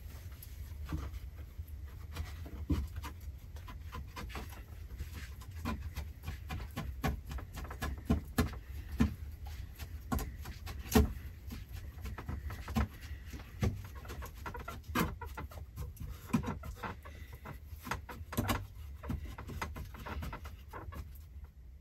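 Irregular light clicks, taps and scrapes of handwork with a knife against wooden boards, as fibre cord is cut and pressed into the seams of a plank door. The taps come unevenly, with a sharper knock about eleven seconds in.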